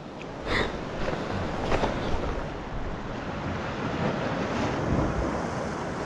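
Sea surf washing steadily over coastal rocks, with wind buffeting the microphone. A couple of brief faint knocks come in the first two seconds.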